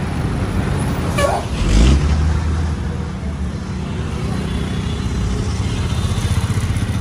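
Road traffic with a steady engine rumble. A bus passes close by, loudest about two seconds in, and motorcycles go past near the end.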